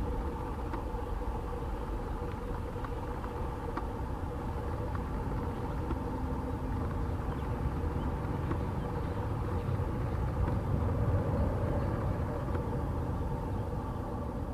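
Distant jet rumble of a departing Boeing 777F with GE90 engines, a steady low roar with a faint steady whine in it that swells slightly and then begins to fade near the end.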